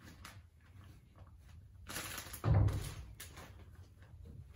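Insulation batt rustling as it is split and pushed in behind an electrical wire in a wall stud bay, with a single dull thump about halfway through.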